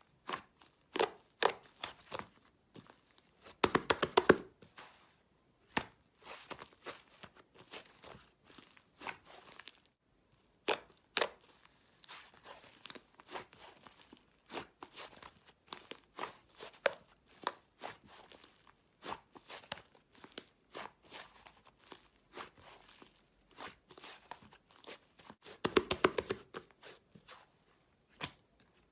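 Slime being squished and pulled by hand, making irregular sticky pops and crackles, with bursts of rapid crackling about four seconds in and again near the end.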